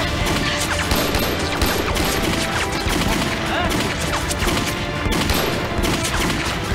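Sustained rifle gunfight: many shots in quick, overlapping succession with no let-up.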